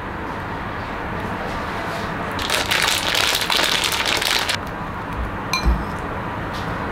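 Seasonings being added by hand to a glass bowl of fried chicken feet: a couple of seconds of crackling, rustling noise in the middle, then a couple of soft knocks and a click, over a steady background noise.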